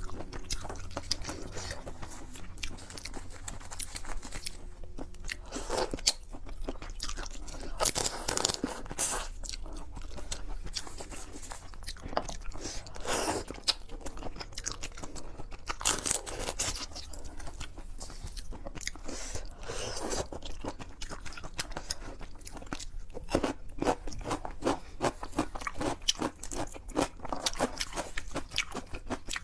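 A person chewing and crunching seafood close to the microphone, with many short, irregular crunches.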